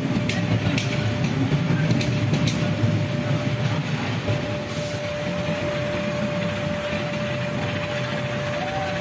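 Glass-working furnace burners and blowers running with a steady low rush, with a thin steady whine over it and a few sharp clicks in the first few seconds.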